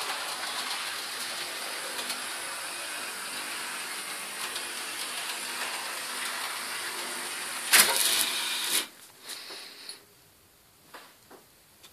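OO gauge model trains running on the layout, a steady whirr of their motors and rattle of wheels on the track. A short loud burst of noise comes near the end, and the running sound then drops away abruptly, leaving only a few faint clicks.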